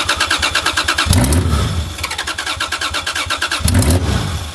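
Toyota 2JZ inline-six being cranked over by its starter motor, with a fast, even chugging rhythm. Twice the engine briefly fires and rumbles without settling into a steady run: it is trying to catch on its first start after the swap.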